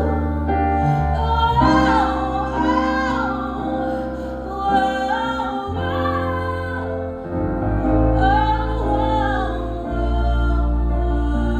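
Music: a woman's voice singing a slow, gliding melody over held keyboard chords and long sustained bass notes that change every few seconds.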